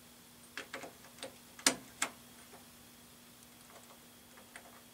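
Sharp small clicks and taps, several close together in the first two seconds with the loudest about one and a half seconds in, then a few faint ticks near the end: a stuck fluorescent light starter being worked in its socket. A faint steady hum runs underneath.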